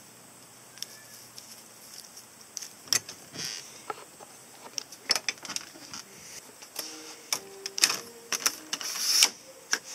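Scattered clicks and knocks with brief rustles, busier in the second half: handling and movement noise.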